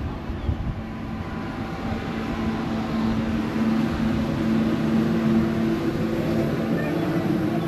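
An engine running steadily with a low, even hum that grows louder a few seconds in and then holds.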